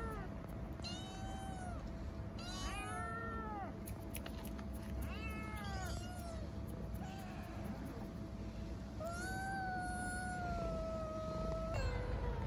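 Several tabby kittens meowing to beg for food: a string of short meows that rise and fall, some overlapping, then one long drawn-out meow lasting nearly three seconds, with another starting just after it.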